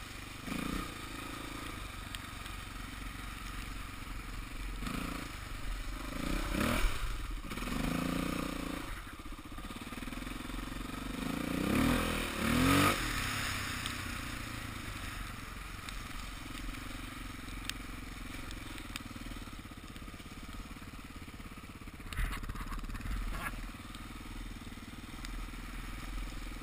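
Dirt bike engine running under the rider, revving up and easing off several times as it climbs a muddy trail, with the strongest rise about halfway through.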